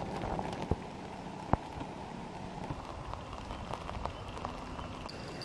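Drizzle falling on a tent's fabric fly: scattered drops tapping over a steady hiss.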